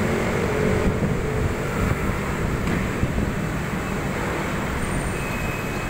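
Steady rumble of city road traffic, with a faint hum that fades out in the first second or two.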